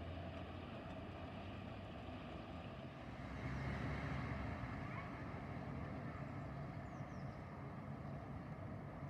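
Steady street traffic noise, with a motor vehicle's engine getting louder about three seconds in.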